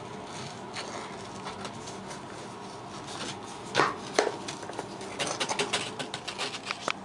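A wooden-handled knife scraping and chipping at a crust of hardened salt. Light scraping throughout, two louder scrapes about four seconds in, then a quick run of chipping clicks near the end.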